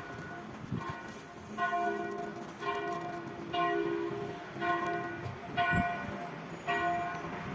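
Church tower bells tolling, struck about once a second, each stroke ringing on into the next.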